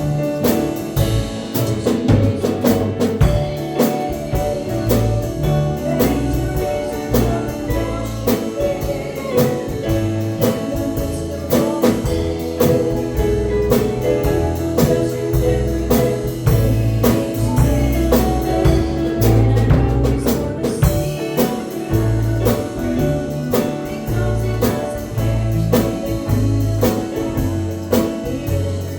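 Gospel song accompaniment with a drum kit keeping a steady beat and guitar, with some singing.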